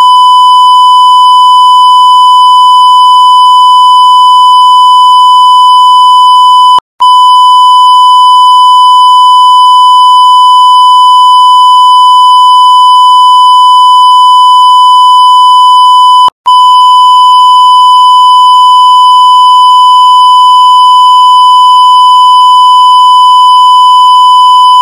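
Censor bleep: a loud, steady electronic beep tone laid over the spoken answer so it can't be heard, broken twice by very short gaps.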